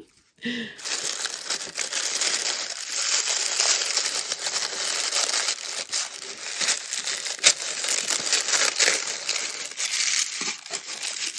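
Wrapping being unwrapped by hand: continuous crinkling and rustling of packaging with small clicks, starting about a second in, and one sharper click about two-thirds of the way through.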